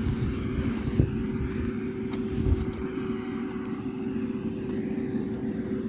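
The engine of a road-building machine grading a dirt road, running steadily with a constant hum and low rumble, with a single knock about a second in.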